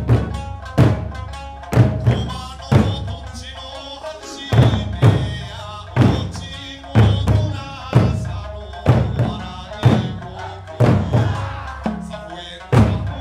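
Eisa drumming: large barrel drums (ōdaiko) and small hand drums (shime-daiko) struck together on a steady beat, about one stroke a second with occasional quick doubles. Behind the drums runs an Okinawan folk song with sanshin and singing.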